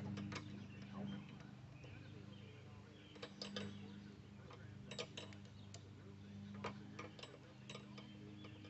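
Light metallic clicks and clinks of hand tools and loose parts, coming irregularly and sometimes in quick little groups, as a mobility scooter is taken apart. A steady low hum runs underneath.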